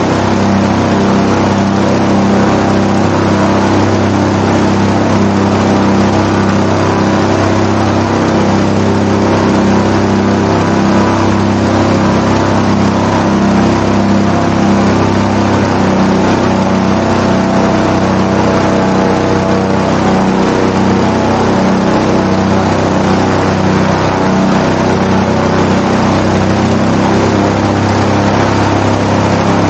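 Airboat-320 SE airboat's engine and propeller running loud at a steady, unchanging speed.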